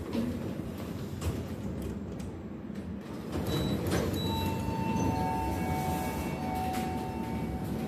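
Lift car of a MacPuarsa GO! Evolution elevator: a steady low rumble with a few clicks, then two short high beeps as the car button is pressed about four seconds in. A steady two-pitch electronic tone follows for about three seconds.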